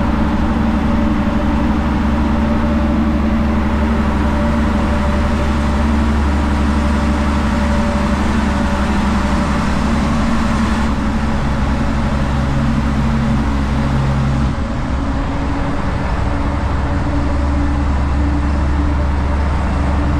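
Heavy truck's diesel engine running under way, heard from inside the cab in a road tunnel. The note eases off about 14 seconds in and builds again a couple of seconds later.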